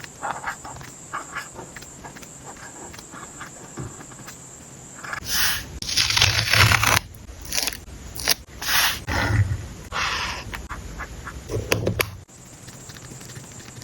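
Paper and sticker sheets being handled close to the microphone: light ticks and scratches, then several loud rustling, crinkling scrapes in the middle.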